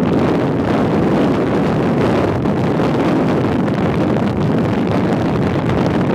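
Steady, loud wind buffeting the microphone of a camera carried on a rigid mountain bike riding fast, mixed with the rush of the ride.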